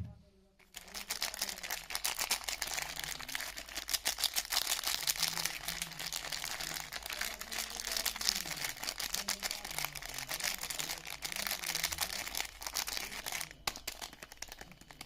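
Soap packaging crinkling and rustling as a bar of soap is unwrapped by hand, a dense continuous crackle with a brief pause near the end.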